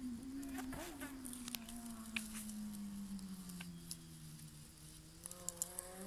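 A flying insect's wings buzzing steadily, the pitch slowly sagging lower and rising again near the end, with a few faint sharp clicks.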